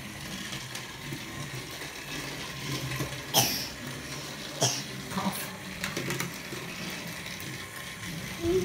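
Toy Thomas & Friends engine (Spencer) running along its track, its small motor whirring steadily, with a few sharp clicks near the middle.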